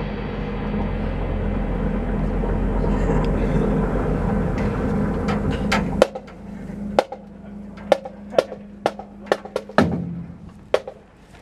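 Marching band and front ensemble playing and holding the final chord of the show, with drums and cymbals, swelling and then cut off sharply about six seconds in. A low held tone lingers until nearly ten seconds in, and a scattering of sharp clicks and knocks follows the cutoff.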